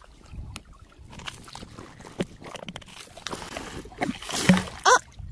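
A hand-held suction pump drawing water and gravel from a shallow streambed. It makes irregular gurgling, slurping and sloshing, with a stronger rush of water about three seconds in.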